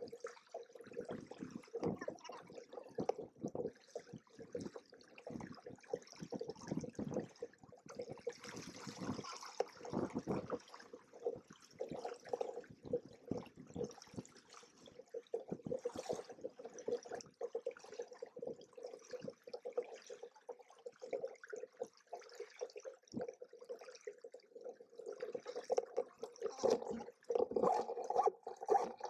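Water sloshing and gurgling irregularly against the hulls of a Hobie Cat 16 catamaran under sail, in choppy uneven surges.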